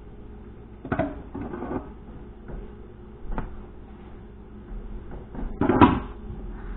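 A few knocks and clatters of things being handled in a kitchen, over a steady low hum: a sharp knock about a second in and a short clatter just after, another knock past the middle, and the loudest clatter near the end.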